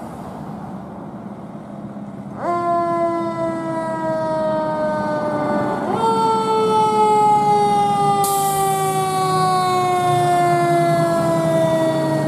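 Fire engine siren sounding as a ladder engine pulls out on a call. About two seconds in it comes on and then slides slowly down in pitch. About four seconds later it jumps back up and slides slowly down again. Underneath is the steady hum of the truck's engine, and a high hiss joins partway through.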